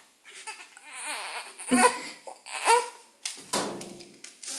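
A baby babbling, making a few short cooing and squealing sounds.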